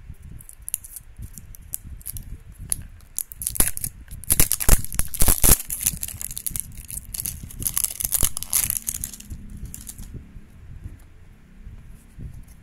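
Printed plastic wrapper being torn and peeled off a toy's plastic cup: crinkling and crackling plastic, loudest about four to six seconds in and dying away after about ten seconds.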